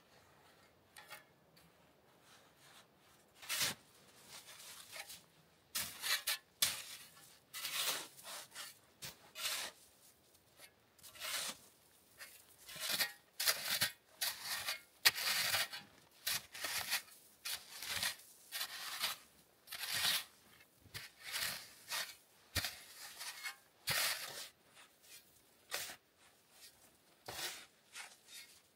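A snow shovel scraping and scooping packed snow in repeated short strokes, roughly one a second, starting about three seconds in.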